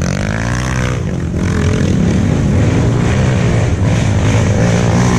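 Off-road enduro motorcycle engine revving hard. Its pitch climbs over the first second, then it holds at high revs with small throttle changes.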